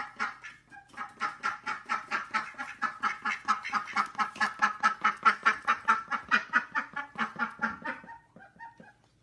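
An animal calling in a fast, even series of short pitched pulses, about five a second, for about eight seconds before trailing off near the end.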